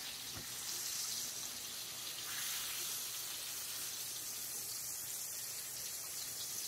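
Chicken breast cutlets, coated in egg and self-rising flour, sizzling steadily in shallow oil in a skillet.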